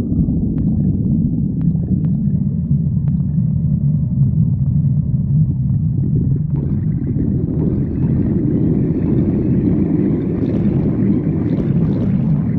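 A hungry stomach growling: a continuous low rumble, with higher gurgling sounds joining in about halfway through and growing busier near the end.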